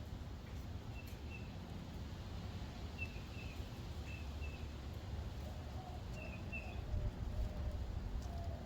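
Birds calling: short high chirps in pairs, every second or two, with lower-pitched notes joining from about halfway through, over a steady low rumble.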